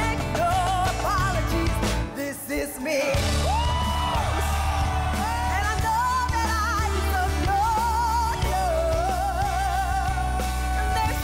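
A woman singing a pop ballad with a live band, holding long notes with wide vibrato. The band briefly drops out about two seconds in, then returns under a long held note.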